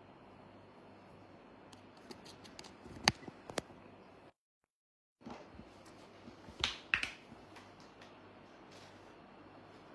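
Low room hiss broken by scattered sharp clicks and crackles, loudest about three and seven seconds in; about four seconds in the sound cuts out completely for about a second. A microphone fault that the owner cannot explain even with a new cable.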